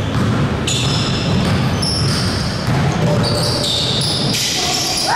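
Basketball game in a gym: a ball bouncing on the court floor, short high squeaks from sneakers on the hardwood, and a low din of the hall.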